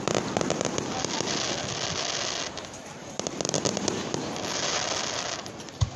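Aerial fireworks bursting and crackling, with clusters of rapid crackles about a second in and again midway. A single sharp thump near the end.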